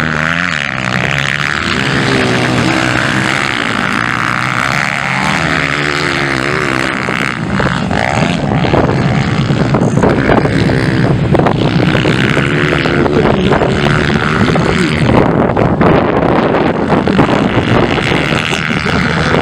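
Motocross dirt bikes racing on a dirt track, their engines revving up and down with the throttle, pitch rising and falling. It gets a little louder over the last few seconds.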